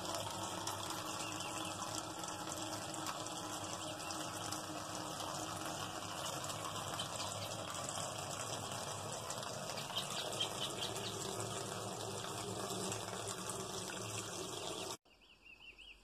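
Water from a hose pouring steadily into a washing machine's tub as it fills, cutting off suddenly near the end.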